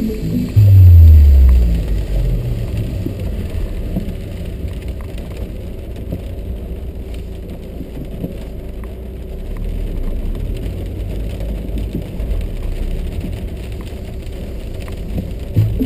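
Inside a car driving in the rain: a steady low engine and road rumble with the patter of rain on the car. About half a second in, a loud low tone falls in pitch for a little over a second.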